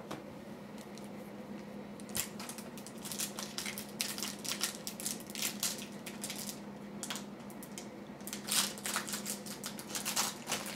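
A trading card pack's silvery foil-lined wrapper crinkling and tearing as it is pulled open by hand. The crackles are irregular and come in clusters, starting about two seconds in.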